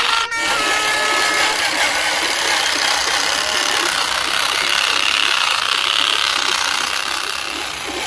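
Truck engine sound effect running steadily, with a brief drop about a third of a second in.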